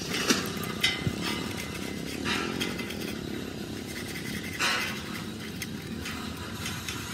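A motor runs steadily in a metalworking shop, with a few sharp metal knocks early on and a couple of short hissing bursts, the louder one a little past the middle.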